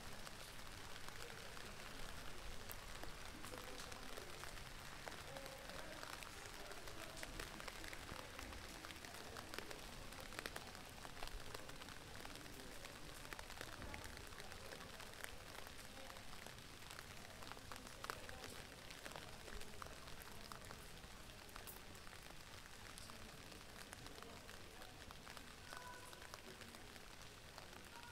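Faint, steady crackling hiss like light rain, scattered with small clicks. Near the end, two faint steady tones come in over it.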